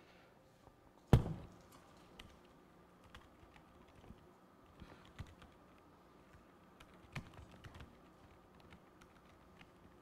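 Laptop keyboard typing, faint scattered key clicks as shell commands are entered, with one loud sharp knock about a second in.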